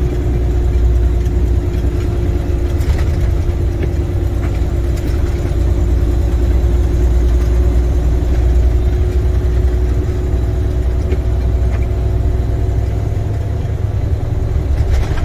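International semi truck's MaxxForce 13 diesel engine running while the truck drives, heard from inside the cab as a steady low rumble with a steady hum above it; the deepest part of the rumble eases slightly near the end.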